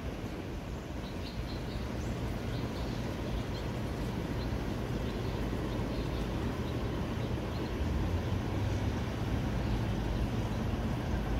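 Outdoor background ambience: a steady low rumble, from wind or distant traffic, with faint short bird chirps scattered through it.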